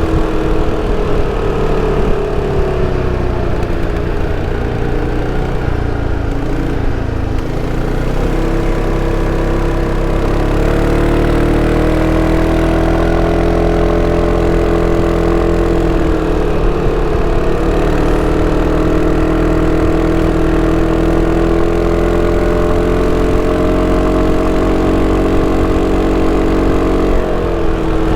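Sym Cruisym 300 scooter's single-cylinder four-stroke engine and stock exhaust under way. The engine note falls over the first several seconds, climbs again about ten seconds in, dips briefly, holds fairly steady, and drops near the end.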